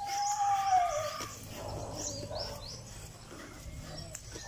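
An animal gives one long pitched call, about a second long, that falls in pitch at its end. Small birds then chirp several times with short high notes.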